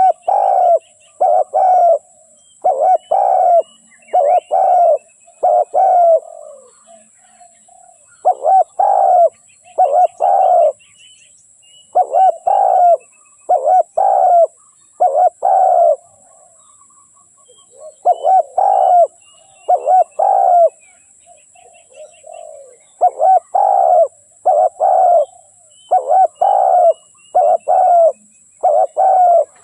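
Spotted dove cooing: phrases of three to six low coos, repeated with pauses of a second or two between them. Faint chirps of small birds and a steady high hiss sit behind it.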